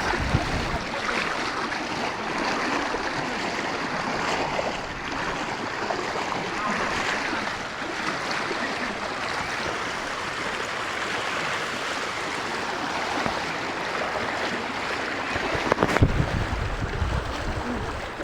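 Floodwater rushing in a steady current. Near the end, wind buffets the microphone with a low rumble.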